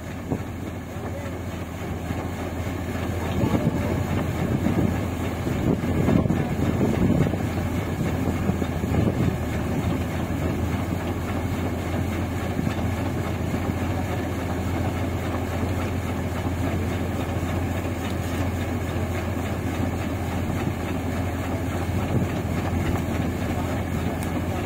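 Rice combine harvester's engine and grain unloading auger running steadily with a constant low hum while it unloads paddy into a truck.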